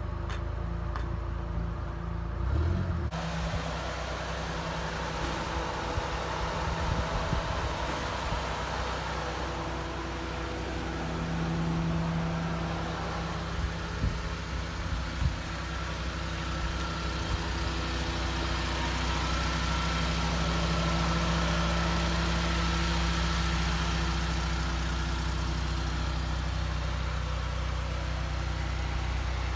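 A 1994 Suzuki Carry's 657 cc F6A three-cylinder engine idling steadily, picking up slightly at times, with a few light knocks in the middle.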